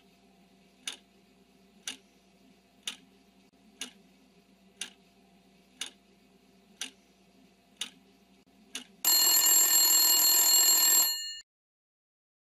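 Quiz countdown-timer sound effect: a clock ticking once a second over a faint steady drone, then a loud ringing alarm bell about nine seconds in, lasting about two seconds, signalling that time is up as the timer reaches zero.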